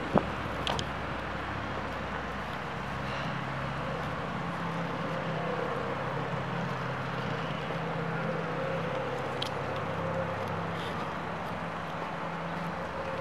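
Steady outdoor ambience with a low mechanical hum throughout, and one sharp click just after the start.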